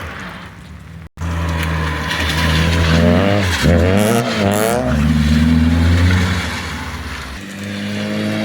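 Small hatchback's petrol engine revving under drift, the revs swinging quickly up and down a few seconds in, then easing off and building again near the end. The sound cuts out for an instant just after a second in.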